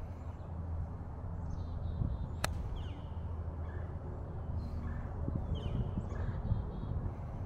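A golf club strikes the ball once on a tee shot, a sharp crack about two and a half seconds in. Birds chirp and trill repeatedly around it.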